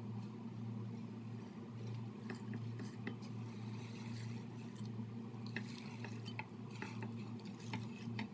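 Dry-roasted whole spices (coriander seeds, cumin, dried red chillies, peppercorns) being pushed by hand off a plate and poured into a stainless-steel mixer-grinder jar: small scattered rattles and ticks of seeds falling onto the steel and the plate scraping its rim, over a steady low hum.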